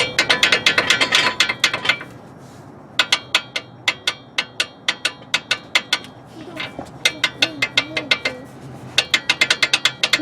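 Worn front sway bar link on a 2010 Buick Enclave clicking as it is worked back and forth by hand: rapid clicks, several a second, in four short bursts with brief pauses. The loose link is the source of the front-end clicking noise.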